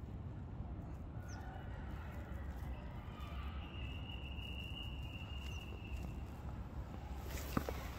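Outdoor ambience picked up by a phone's microphone: a steady low rumble of wind on the mic, with a few faint bird chirps and a faint high note held for a few seconds in the middle. Near the end, footsteps begin on dry ground.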